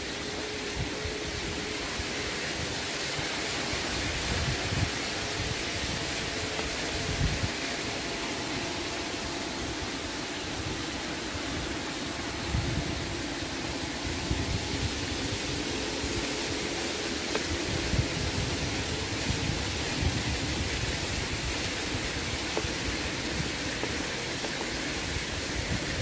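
Steady outdoor background noise, with a faint wavering hum and low rumbles of wind on the microphone now and then.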